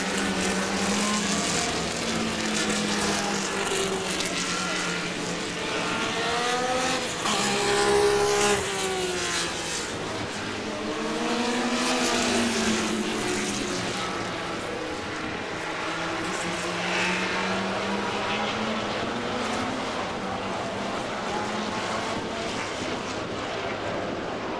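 Engines of vintage Formula One racing cars passing at speed one after another, each note rising and falling as the car goes by and changes gear. The loudest pass comes about eight seconds in.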